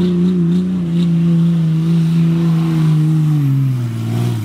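Lifted pickup truck's engine held at high revs as the truck spins its tires through grass and dirt. The engine pitch holds steady with small wobbles, then falls away over the last second as the revs drop.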